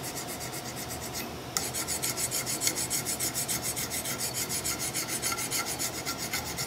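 Hand file draw-filing the steel tang of a flintlock longrifle barrel: a rasping scrape of metal on metal in quick, short back-and-forth strokes, about four to five a second, with a brief lull a little over a second in before the strokes come louder. The barrel steel is fairly hard, so the file doesn't cut as easily.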